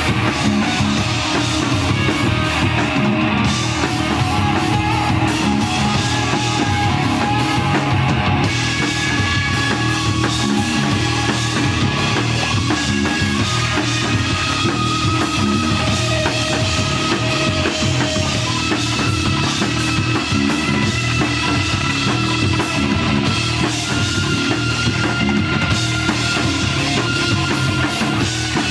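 Live rock played by a trio: electric guitar playing long held lead notes over bass guitar and a full drum kit, loud and steady.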